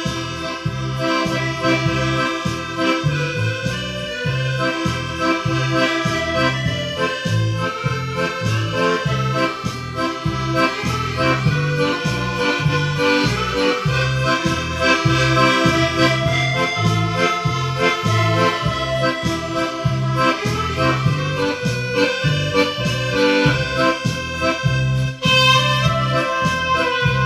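Accordion playing a lively tune, with a steady bass beat about twice a second underneath.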